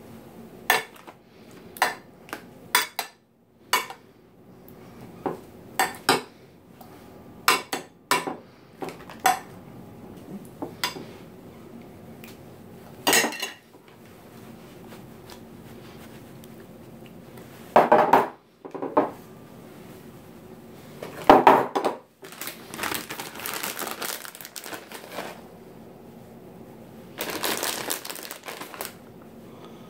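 A spoon clinking and scraping against glass baking dishes as sauce is spread, with many sharp taps through the first half. Past the middle come two louder handling noises, then a plastic bag of shredded cheese crinkles and rustles as it is opened and shaken out.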